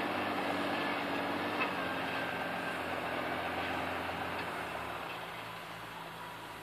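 F130 tractor's engine running steadily under load while it pulls a combination tillage implement through ploughed soil, growing fainter over the last two seconds as it moves away.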